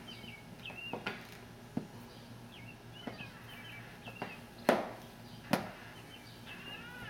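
Several knocks and taps against a wooden front door and its metal handle as a small child handles them, the two loudest less than a second apart near the end. Small birds chirp briefly in the background.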